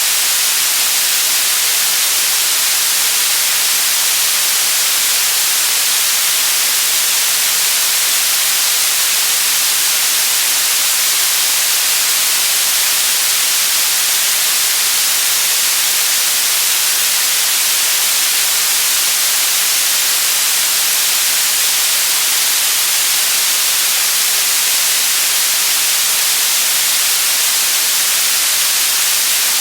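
Steady white noise: an even, unchanging hiss with no breaks or changes, bright and treble-heavy.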